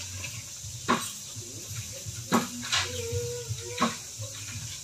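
Four sharp clinks of hard objects knocking together, spaced unevenly: one about a second in, two close together near the middle, and one more near the end.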